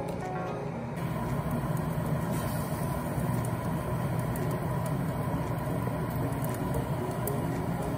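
NuWave air fryer oven's fan running with a steady whir while it cooks. Soft background music fades out about a second in.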